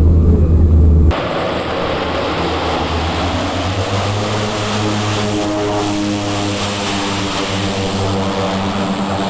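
Engines of a DHC-6 Twin Otter twin turboprop running. First comes a heavy low drone, then about a second in it cuts abruptly to a steadier, brighter engine whine with a strong hiss.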